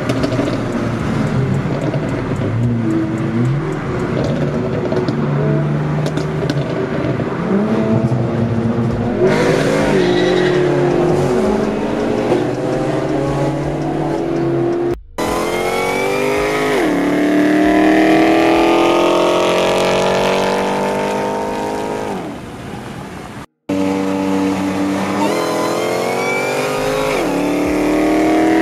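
Tuned BMW 335i's twin-turbo N54 straight-six accelerating hard through the gears, heard from inside the cabin. The engine pitch climbs and drops back at each upshift, several times in the second half.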